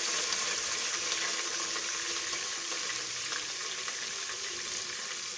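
Grated onion sizzling as it goes into hot oil in a cooking pot, a steady hiss that slowly dies down.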